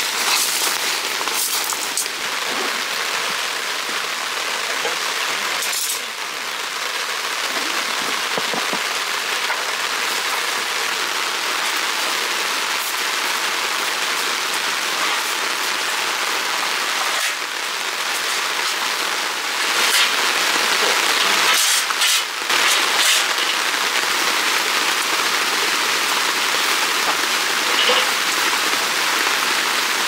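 Steady rain falling, an even hiss, with a few sharp clicks and knocks here and there.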